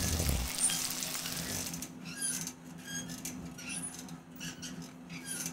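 Faint scattered small clicks and short high squeaks over a low steady hum, after the music fades out in the first half second.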